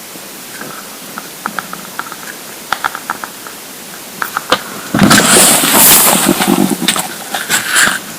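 Empty, hungry stomach gurgling, with small scattered clicks and bubbles, then a loud, long rumbling growl starting about five seconds in and lasting around three seconds: hunger pangs.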